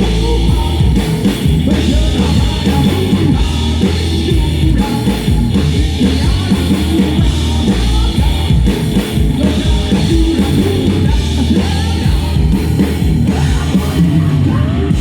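Live band playing rock music with a drum kit and guitar, loud and continuous, during a sound check.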